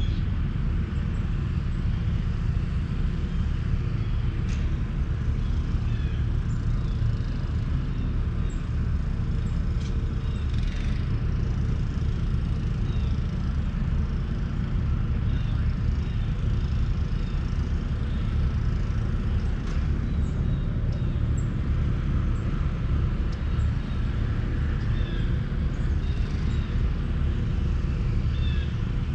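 Outdoor golf-course ambience: a steady low rumble with small high chirps scattered through it, like distant birds.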